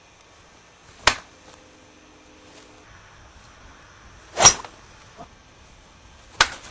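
Three sharp hits, about a second in, halfway through and near the end; the middle one is the loudest and rings a little longer. A faint low steady hum is heard briefly after the first hit.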